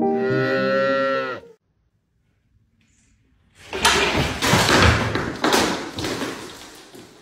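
A cat's drawn-out, wavering meow lasting about a second and a half. After a pause, a loud crash and clatter of things falling to a hard floor, with glass breaking and a metal bowl clattering, dying away over about three seconds.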